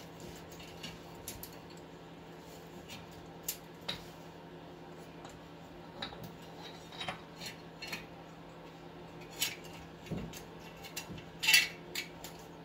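Scattered metal clinks and taps as the new front wheel hub bearing assembly and its ABS sensor lead are handled and fitted against the steering knuckle of a 2003 Pontiac Grand Am GT, with a louder clank near the end as the hub is set against the knuckle.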